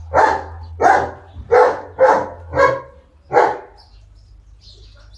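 A dog barking, six sharp barks about half a second apart, stopping about three and a half seconds in.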